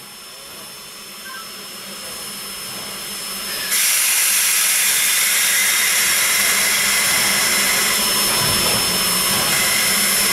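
Steam hissing from Texas State Railroad #30, a 1917 Baldwin 2-8-2 Mikado steam locomotive. It starts as a softer hiss and about four seconds in jumps suddenly to a loud, steady rush of escaping steam, with a thin high tone running underneath.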